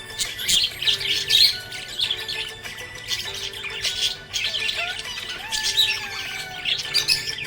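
Budgies chirping and squawking in rapid, busy chatter over background music.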